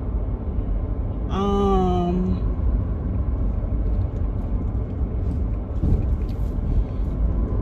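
Steady low road and engine rumble inside a moving car's cabin. About a second in, a woman makes one drawn-out vocal sound lasting about a second.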